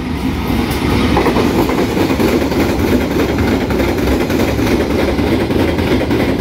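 Ballast train of freight wagons rolling past, a steady loud rumble with wheels clattering over the rail joints, building up over the first second.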